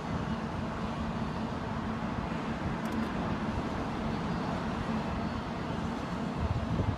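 Freight train of autorack cars rolling past, a steady rumble of steel wheels on rail with a low hum.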